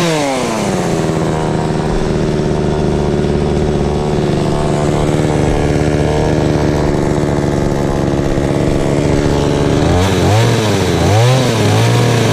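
Two-stroke chainsaw revved up and held at a steady high speed for about nine seconds, as when cutting through a fruit-tree limb while pruning. Near the end the throttle is blipped up and down repeatedly.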